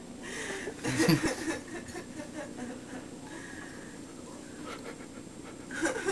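A brief low vocal sound about a second in, then faint, uneven panting breaths.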